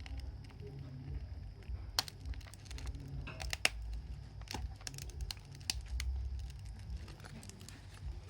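Irregular sharp clicks and crackles of a stuck smartphone back cover being pried at, its adhesive and cracked panel crackling as it is worked loose.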